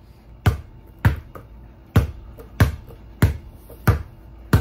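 A ball bouncing on a hard floor: seven sharp thumps, each a little under a second apart, with faint music underneath.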